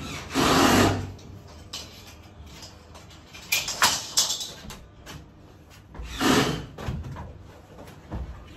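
Installation work noises at ductwork from a stepladder: three bursts of scraping and clattering, about a second in, around four seconds in and about six seconds in, and a short knock near the end as the ladder is climbed.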